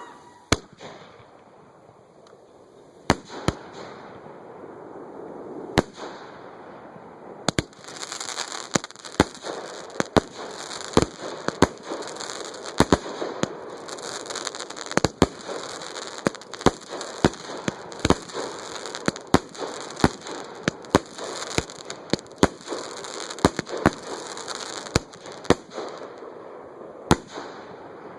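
Fireworks going off at close range: sharp bangs, a few spaced out at first, then coming in quick succession from about seven seconds in, over a continuous crackling hiss.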